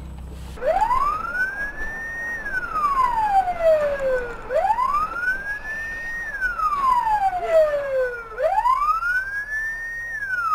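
Ambulance siren wailing in three slow cycles, starting about half a second in. Each cycle rises for about two seconds, holds briefly at the top, then falls slowly.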